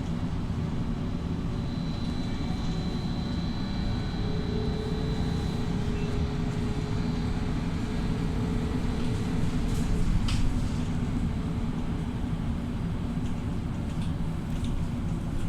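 BKM 433000D trolleybus under way, heard from inside the passenger cabin: a steady rumble of running gear and road noise with faint steady whining tones. There is one sharp click about ten seconds in.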